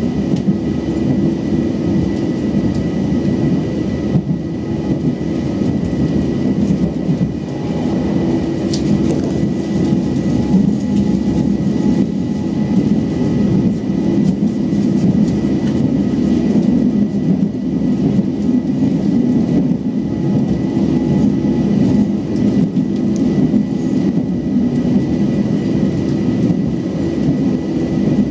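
Interior running noise of an Auckland AM class electric multiple unit train under way: a steady, loud rumble of wheels on the rails with a thin, steady high tone over it.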